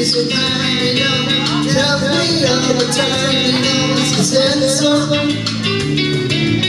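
Karaoke backing track playing over a PA, with a man singing live into a handheld microphone over it.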